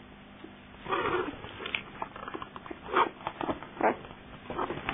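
Newborn Australian Shepherd puppies, nine days old, making short whimpering and squeaking sounds in irregular bursts. They start about a second in and are loudest around the middle.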